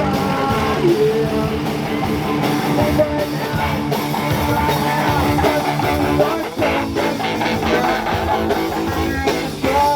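Rock music with guitar and a drum kit.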